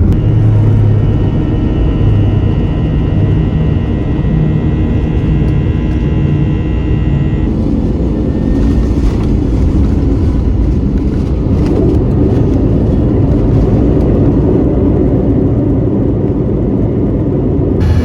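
Airbus A321-211 jet airliner, a loud steady rumble, with a thin high whine over it that stops about seven seconds in.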